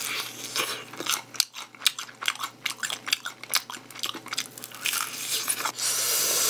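Close-up crunching and chewing as a person bites into crispy glazed fried chicken, with many sharp crackles of the breading. Near the end comes a loud breathy rush of air.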